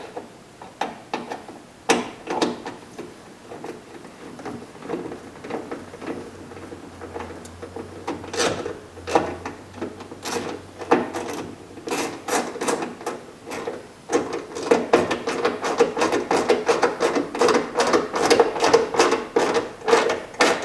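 Ratchet and 10mm socket running in the bolt that holds an inside door handle, with scattered clicks at first, then quick back-and-forth ratcheting strokes, several a second, from about two-thirds of the way in.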